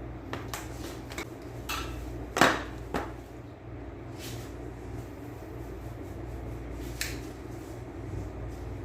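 Scattered light clicks and knocks of objects being handled, the loudest about two and a half seconds in, over a steady low hum.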